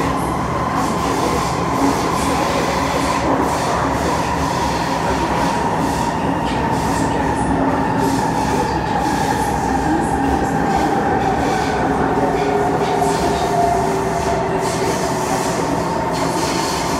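Kawasaki C151 metro train running through a tunnel, heard from inside the car: a steady loud rumble of wheels on rail with a whine that slowly drops in pitch.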